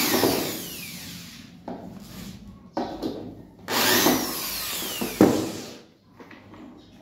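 Corded electric drill driving screws into wood, in two long runs with two short blips between them. The whine falls in pitch through each run as the motor slows under load.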